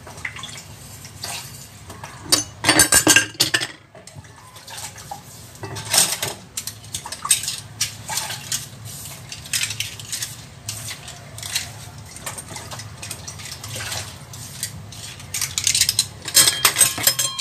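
Dishes being hand-washed: plates, a steel bowl and cutlery clinking and clattering against each other in the sink. The loudest clatters come about two to three seconds in and again near the end.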